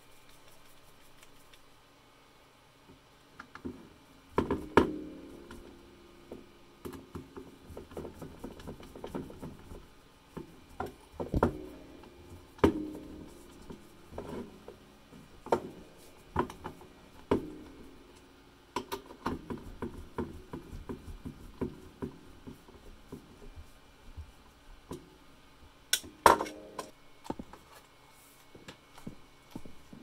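Hand-tool work on a workbench, starting a few seconds in. A screwdriver drives screws to fix a cable clamp to a composite decking board beneath a plastic smoke alarm base, making irregular clicks and knocks, with a few sharper clacks.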